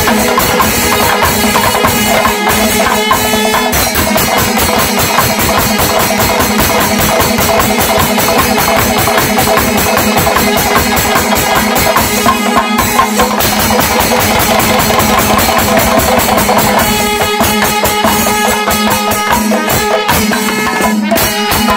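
Chenda drum ensemble: many cylindrical chenda drums beaten fast with sticks in dense, continuous rhythm, with a sustained ringing layer above the strokes.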